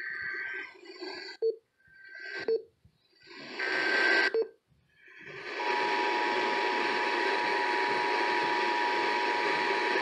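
Emergency Alert System Required Monthly Test heard through a small radio's speaker: three buzzing digital header bursts, the first already under way, each ending in a click. About five and a half seconds in, the steady two-tone EAS attention signal begins and holds.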